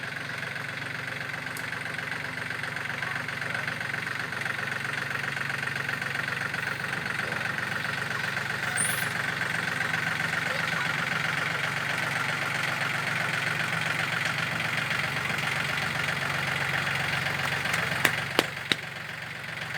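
Yanmar EF393T tractor's 39 hp diesel engine running steadily with a constant drone, with a few sharp clicks near the end.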